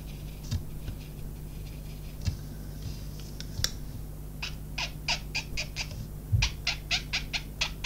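Short squeaks of a colouring tool's tip rubbed over card while colour is blended. A few come early, then a quick run of them, about three a second, from about halfway through; the squeak is called very satisfying.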